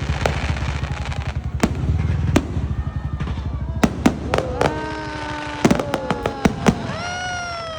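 Aerial fireworks bursting: a string of sharp bangs at uneven intervals over crackle and a low rumble, most closely packed between about four and seven seconds. From about four and a half seconds, several drawn-out tones sound together and slowly fall in pitch, a last long one starting near the end.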